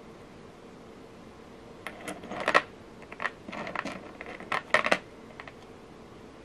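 Small metal jewelry beads and lava stone beads on beading wire clicking and clinking against each other and tapping on a plastic work surface as the strand is handled. The light clicks come in quick clusters, starting about two seconds in and stopping about five seconds in.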